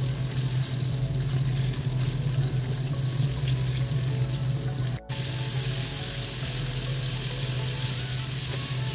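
Flour-coated pork chunks deep-frying in hot oil in a wok: a steady sizzle over a steady low hum. The sound breaks off for an instant about halfway through.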